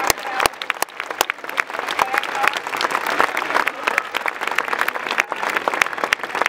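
Large crowd of football supporters applauding, many hands clapping irregularly with scattered voices among them.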